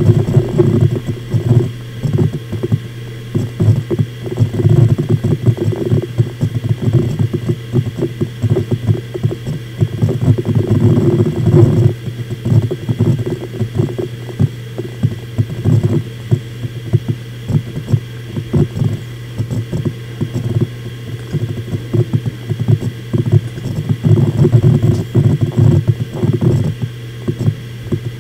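Seagate Enterprise Capacity 2.5 HDD v3 (ST1000NX0313), a 1 TB 7200 rpm drive, seeking hard during an operating-system boot. The head actuator makes rapid, irregular clicking and chattering over the steady hum of the spindle, with a few short quieter spells.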